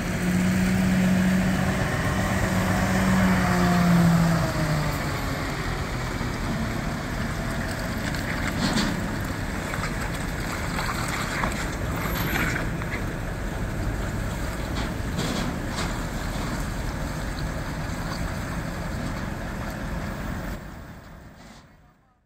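Heavy trucks' diesel engines running steadily, with a hum that rises slightly and stops about four seconds in. A few short knocks come through, and the sound fades out near the end.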